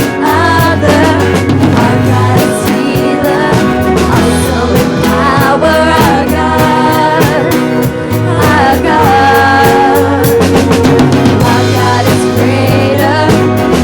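Live band music with a steady drum-kit beat and guitar, with singing over it.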